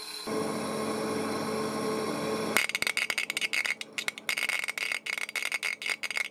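A steady hum, then, from about two and a half seconds in, a home-built resistor-capacitor EDM machine burning: fast, irregular crackling of spark discharges between a copper electrode and a stainless steel workpiece under distilled water, over a steady high whine.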